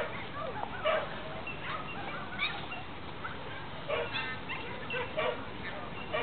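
Dogs barking and yipping: several short calls scattered through, with a quick run of them about four seconds in, over steady background noise.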